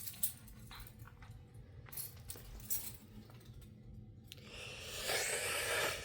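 Scattered small clicks and light metallic clinks of things being handled, then a rustling hiss building from about four and a half seconds in.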